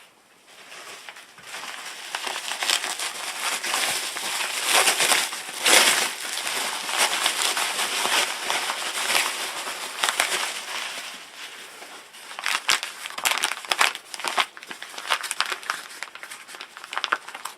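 Packing material crinkling and crumpling as it is handled and unwrapped by hand, with many small crackles and clicks, starting about a second in.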